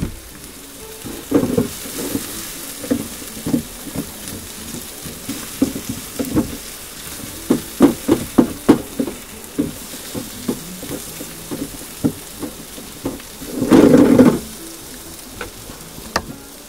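Corned beef frying in a pan on a portable gas stove: a steady sizzle, with repeated short knocks and scrapes of a knife on a wooden chopping board and a wooden spatula stirring in the pan. A louder noise about a second long comes near the end.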